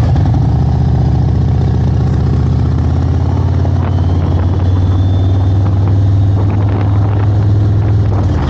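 Motorcycle engine and exhaust heard from the rider's seat while riding along a road: a loud, low, even exhaust note that settles into a steady cruise after about a second.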